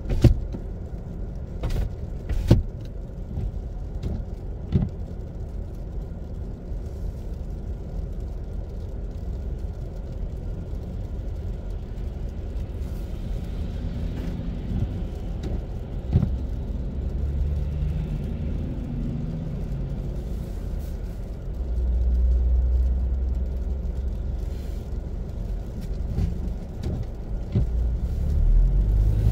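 Steady low rumble of a car and the traffic around it, heard from inside the cabin while waiting in traffic, with a few sharp clicks or knocks in the first few seconds and another at about 16 s. The rumble grows louder after about 22 s and again near the end as traffic starts to move.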